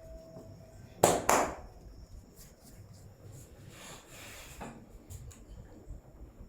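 Two loud, sharp hand slaps about a quarter second apart, a percussive stroke of an Indian barber's head massage, followed a few seconds later by a brief soft rustle and a faint click.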